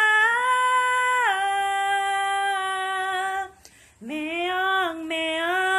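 A woman singing unaccompanied. She holds one long note that steps down in pitch about a second in, breaks off briefly for a breath, then starts a new phrase of two sung syllables.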